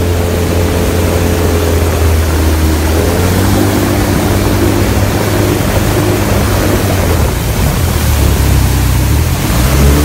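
Polaris MSX 150 personal watercraft running at speed: a steady engine drone under the rushing and spraying of its jet wake, the engine note rising near the end.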